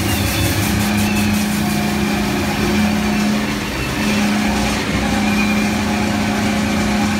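Ghost train ride car running along its track: a loud, steady rumble with a humming drone that drops out briefly a few times.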